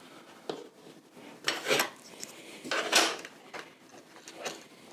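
Small metal tins being handled, opened and closed, with the driver bits inside clinking: a handful of separate light metallic clicks and rattles, the loudest about two and three seconds in.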